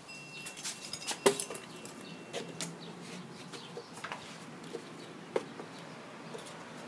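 Scattered clicks and knocks of a door being opened and handled, with one sharp knock about a second in.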